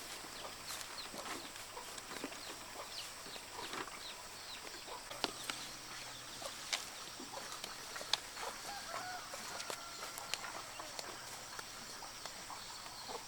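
Farmyard chickens clucking, with many short high chirps throughout and a few sharp clicks or knocks.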